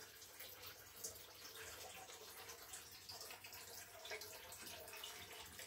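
Faint, steady trickling of water with small drips.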